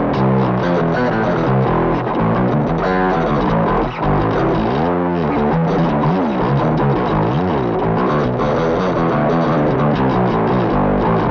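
Jackson Kelly KBX electric bass played through distortion and effects in a fast run of notes, with wavering pitch bends or slides in the middle.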